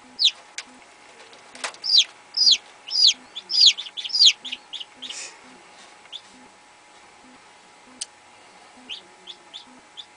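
Newly hatched chicken chicks peeping: a run of high, downward-sliding peeps, about two a second, then a few fainter ones near the end.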